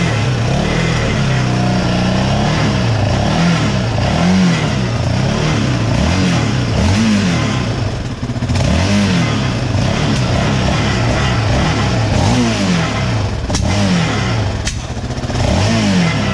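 Yamaha Raptor 700 ATV's single-cylinder engine being blipped over and over, its pitch rising and falling about once a second. It has a rattle that the mechanics place inside the muffler, since the muffler itself is not loose.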